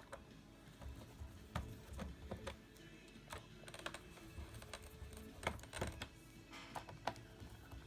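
Irregular light clicks and taps of a Phillips screwdriver and small screws on a laptop's plastic case, as the hard drive's screws are driven back in.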